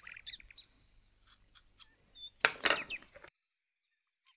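Kitchen knife working on a wooden cutting board while chopping cilantro: a few light taps, then a louder scraping stroke about two and a half seconds in. The sound then cuts out abruptly.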